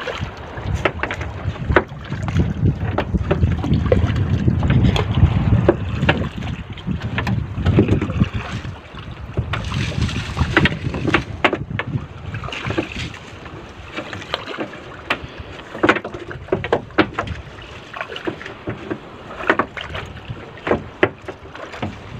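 Fishing net being hauled by hand into a small outrigger boat: a run of short knocks and taps as the wet net comes over the side and piles into the hull. Wind rumbles on the microphone through the first half.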